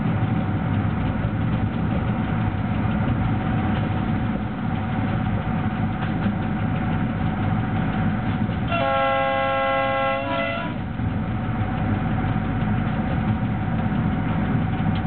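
BDZ class 46 electric locomotive running with a freight train, heard from its cab: a steady rumble of the running gear with a steady hum. About nine seconds in, the horn sounds one blast of about two seconds.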